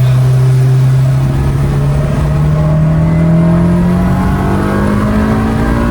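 Turbocharged Honda B18C inline-four engine in a Civic accelerating under load. Its note holds steady, then from about two seconds in climbs slowly and evenly in pitch as the revs rise through a gear.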